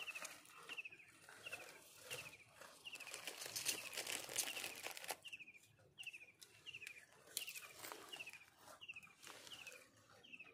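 A bird repeating a short, falling chirp about twice a second. A stretch of crinkling and rustling fills the middle few seconds.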